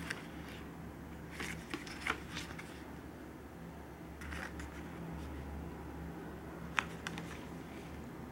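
Cardboard hang tags on a jersey being flipped and handled: a handful of short papery rustles and flicks, spaced a second or two apart.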